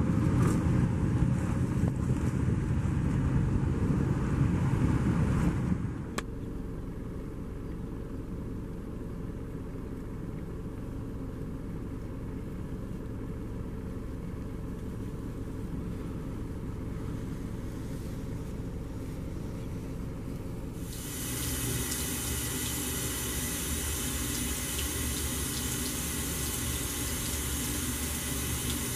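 A car driving on a snow-covered road, with a low rumble heard from inside the cabin, which cuts off abruptly about six seconds in and leaves a quieter steady background. About two-thirds of the way through, a bathroom sink faucet's thin stream running into the basin comes in and carries on.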